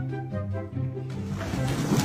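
Instrumental music with held melodic notes over a repeating bass line; a noisy rush builds in underneath from about a second in.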